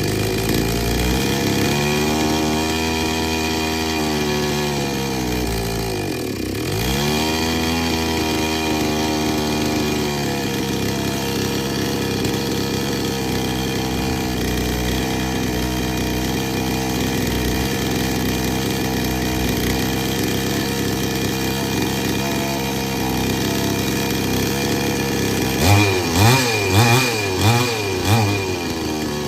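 Two-stroke petrol chainsaw engine running. Its speed rises at first, then sags sharply about six seconds in, nearly dying before it picks up again, and then it idles steadily. Near the end the throttle is blipped five times in quick succession. The saw is one that won't take load and needs its carburetor adjusted.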